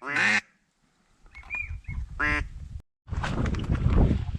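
Duck quacks: a drawn-out quack at the start and a short quack about two seconds in, with faint chirps between. Rustling, wind-like noise fills the last second and a half.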